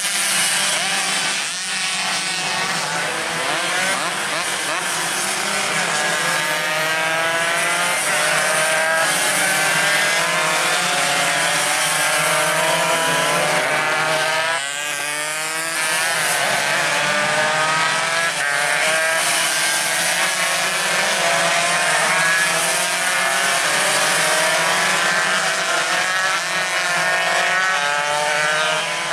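Several Yamaha RX King two-stroke single-cylinder race motorcycles at high revs, their pitch climbing again and again through gear changes as they race past together.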